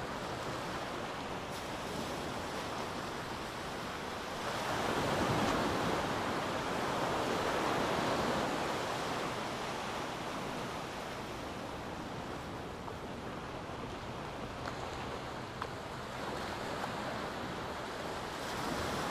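Small ocean waves breaking and washing up a sandy beach: a steady rush of surf that swells louder for a few seconds about five seconds in and again near the end.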